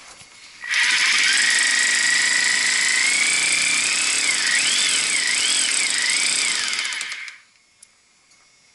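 Power drill running for about six and a half seconds, its motor whine steady at first, then rising and wavering as it works under load.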